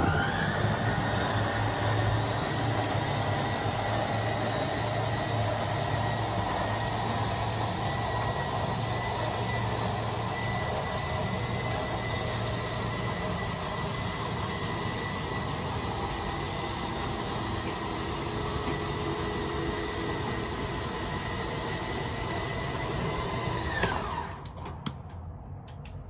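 Electric slide-out motor of a 2020 Forest River Flagstaff E-Pro travel trailer running as the slide-out room is drawn in: a whine that rises as it starts, holds steady with a low hum for about 24 seconds, then winds down and stops.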